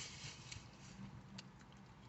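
Faint chewing of a bite of shrimp burger: soft mouth noises with a couple of small clicks.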